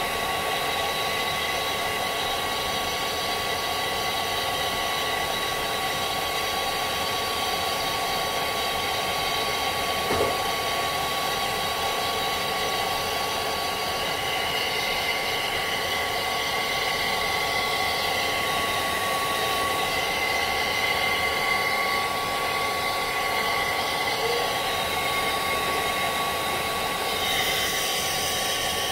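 A handheld hair dryer running steadily: a rushing blast of air with a high motor whine, its sound shifting slightly near the end as it is moved over the head.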